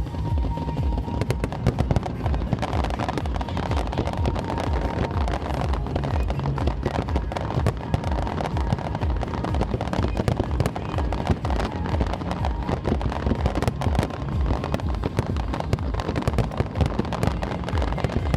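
Aerial fireworks display: a dense, continuous run of bangs and crackling bursts over music.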